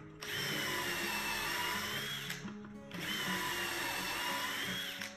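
Cordless drill boring two dowel holes into a wooden case part through a Dowelmax doweling jig's guide bushings, each hole a run of about two seconds with a short pause between. The motor's whine sags a little under load and rises just before each run stops.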